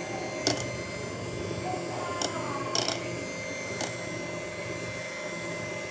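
Handheld electric mixer running steadily on its lowest speed, its beaters whisking thick chocolate brownie batter in an enamel pot. It gives an even motor whine, with a few short clicks.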